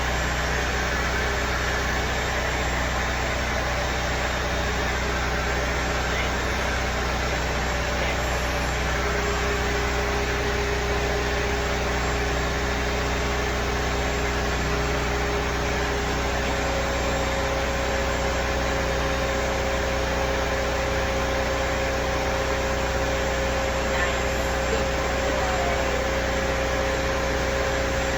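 Blow dryer running continuously with a steady rushing-air noise and motor whine; the whine's pitch steps up about halfway through.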